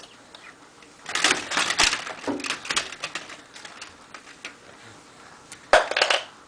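Vertical window blind slats clattering and rattling against each other as a baby bats at them, in a burst of rapid clicks about a second in and a shorter, sharper one near the end.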